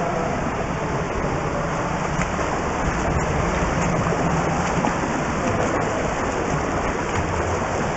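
Steady rushing and splashing water from a swimmer's front-crawl strokes, heard from close above the pool surface.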